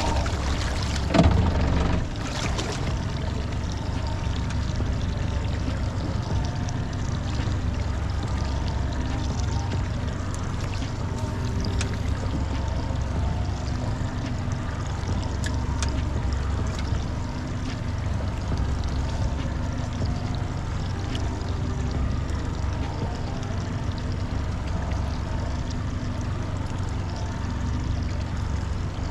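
Steady rumble and wash of a small fishing boat on the water, with water moving around the hull. A brief knock comes about a second in.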